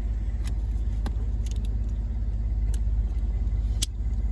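Ford F-150's engine idling steadily, heard from inside the cab, with a few light plastic clicks from the dash-mounted 4x4 selector switch being pried at.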